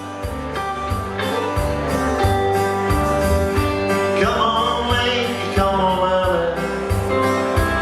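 Live country music with guitar and sustained chords over a steady beat, the level rising over the first second.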